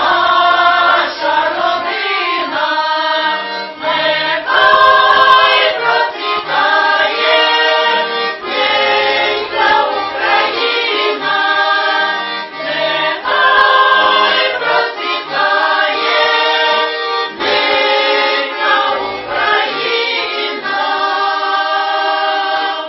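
Women's folk choir singing a Ukrainian Christmas carol (koliadka) in unison and harmony, accompanied by an accordion.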